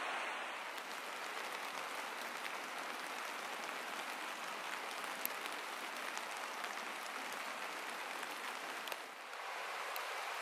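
Light rain falling, a steady patter with scattered individual drops ticking. It dips briefly about nine seconds in, then carries on.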